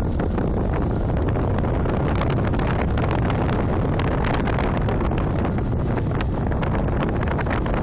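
Heavy rain falling: a steady rush, dense with sharp drop ticks, over a low rumble.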